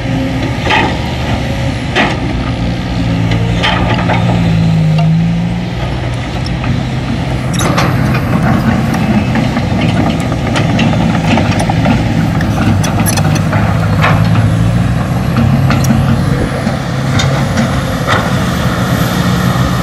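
Sumitomo SH210 hydraulic excavator's diesel engine working under load as it digs, its pitch rising and falling with the hydraulic moves, with scattered knocks and clanks from the bucket and boom.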